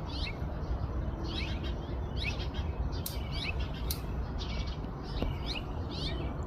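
Juvenile red-tailed hawk begging for food: a series of short, high, falling calls, about one a second, over a low steady rumble.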